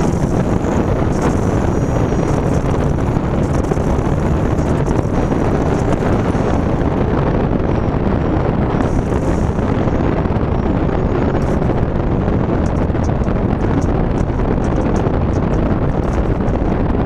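Loud, steady wind noise rushing in through a passenger window left slightly open in a moving car.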